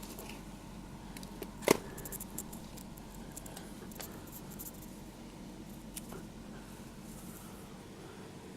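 Handling noises: one sharp click about a second and a half in, then a few faint scattered clicks over a low steady hiss.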